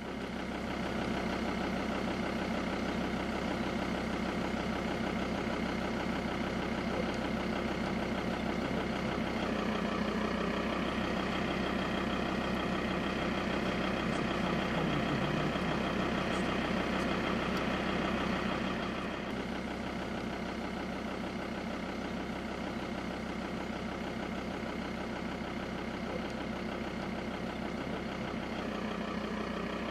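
Vehicle engine idling steadily, a little quieter from about two-thirds of the way through.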